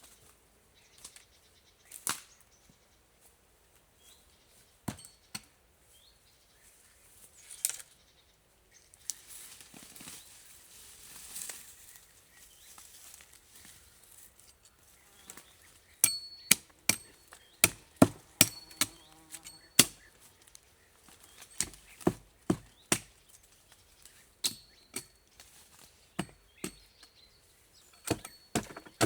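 Scattered light clicks and rustling, then from about halfway a run of sharp, loud knocks, often about two a second, some with a short ring: a tool striking wood.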